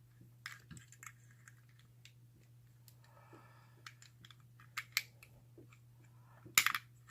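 Irregular small metal clicks and scrapes of a pick and screwdriver working the levers and bolt of a Squire four-lever padlock, with a soft rasping scrape about three seconds in and the loudest cluster of clicks near the end.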